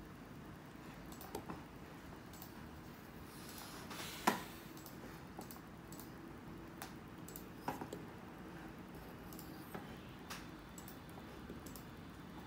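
Faint scattered clicks and taps from a small die-cast alloy model racing bicycle being handled and set down on a wooden table. The loudest knock comes about four seconds in.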